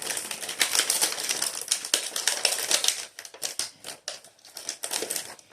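A crinkly pastry wrapper being handled and torn open, a dense run of crackling for about three seconds, then scattered crinkles and clicks.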